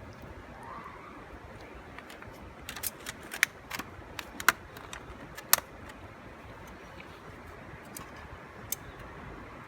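Several sharp clicks and clinks of small hard objects being handled, bunched in the middle and one more near the end, over a steady background rush.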